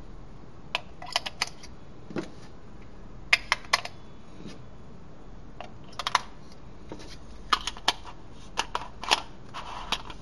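Irregular sharp clicks and taps of a small ABS-plastic folding camping lantern being handled, coming in small clusters, with a soft knock about two seconds in and a brief rustle near the end.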